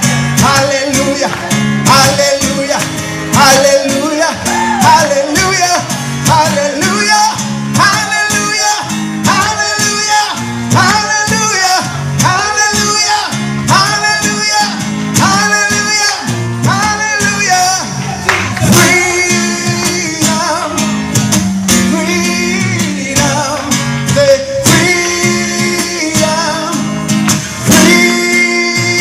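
Live worship song: a man singing over guitar accompaniment, his voice rising and falling in long sung phrases.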